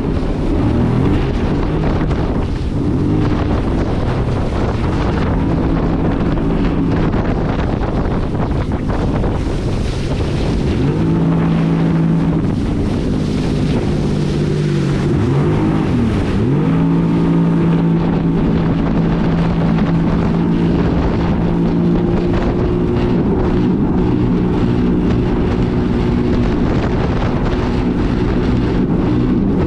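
2022 Yamaha EX Sport WaveRunner's 1049 cc three-cylinder four-stroke TR-1 engine and jet pump running under way, with wind on the microphone. The engine speed dips and climbs back briefly about a second in, and more deeply around fifteen to sixteen seconds in, then holds steady.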